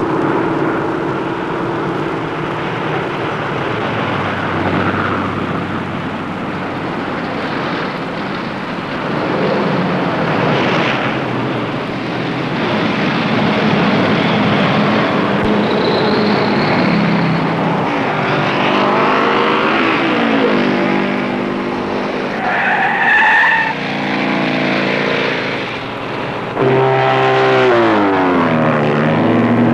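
Traffic and engine noise from cars and motorcycles running and revving. The engine pitch swings up and down several times in the second half.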